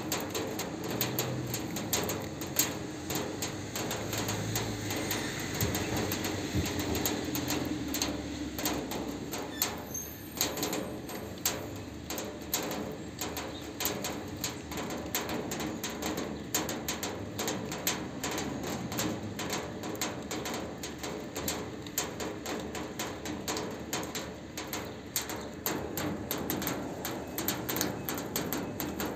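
Steady rain on a sheet-metal roof: a dense patter of countless drops tapping the metal and the standing water on it.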